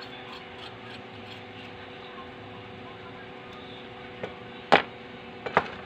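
Small hard parts and tools being handled and set down on a workbench: a few sharp clicks from about four seconds in, one of them loud, over a steady background hum.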